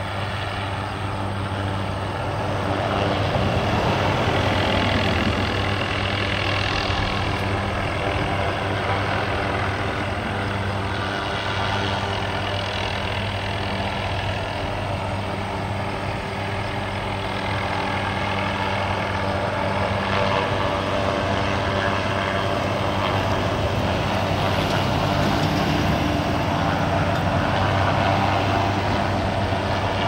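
Small utility helicopter hovering overhead: a steady engine and rotor drone that swells slightly a few seconds in and again near the end.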